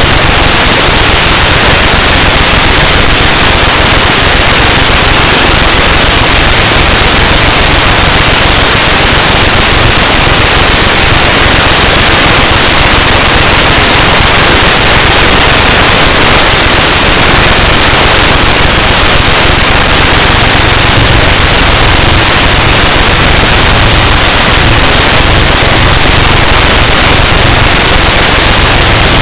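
Loud, steady rushing of strong wind blowing across a small camera's microphone, near full scale, with no motor tone heard through it.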